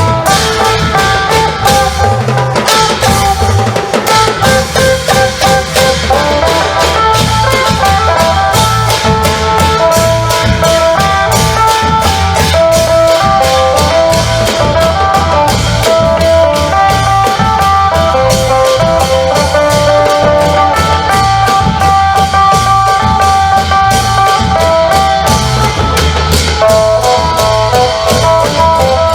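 Isan long-drum (klong yao) band playing: a phin lute runs a continuous melody over dense, driving long-drum rhythm with sharp percussion strikes.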